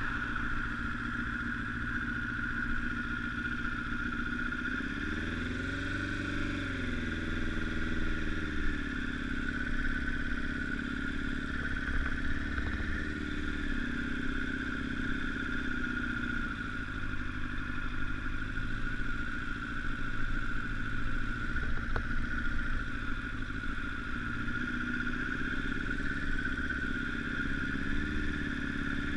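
Honda CBR1000RR's inline-four engine running under way, its pitch rising and falling once about five to eight seconds in, and briefly again near the end, over a steady high hum.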